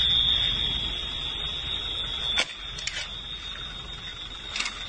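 A steady, unbroken high-pitched alarm tone sounding continuously over a low rumbling noise, which eases after the first second. A few sharp clicks cut in, the loudest a little over two seconds in and another pair near the end.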